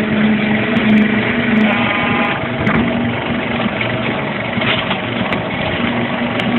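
Truck loading conveyor with electric gear motors running, carrying sacks up its belt: a steady mechanical drone with a low hum that fades in and out.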